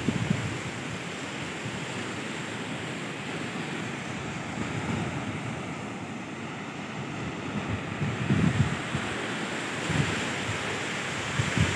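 Surf breaking on a sandy beach, a steady wash of sea noise, with wind buffeting the microphone in low gusts at the start and again about eight seconds in.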